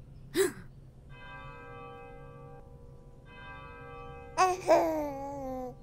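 Two held, bell-like chords, each about a second and a half long with a short gap between them, then near the end a loud wailing voice that falls in pitch.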